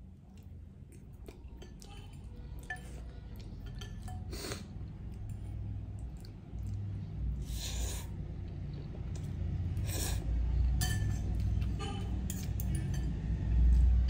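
Metal fork and spoon clinking and scraping against a glass bowl of ramen noodles, with noodles slurped in a few short bursts. There is a louder clink near the end.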